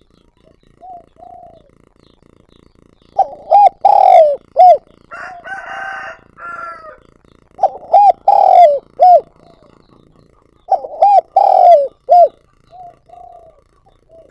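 Spotted dove cooing song: three loud phrases of four or five quick coos each, a few seconds apart, with a couple of soft coos before the first phrase and after the last. Between the first two phrases there is a rougher, higher-pitched call.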